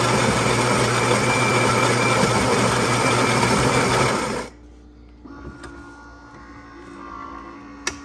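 Built-in ceramic burr grinder of a Philips 3200 espresso machine grinding beans for the second shot, a loud steady grinding that stops abruptly about four and a half seconds in. The machine then runs much more quietly, with a single click near the end.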